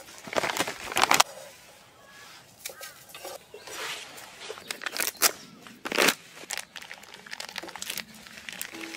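A plastic food pouch crinkling while freeze-dried chicken dog food is crumbled by hand and dropped into stainless steel bowls, in irregular rustling, crunching bursts.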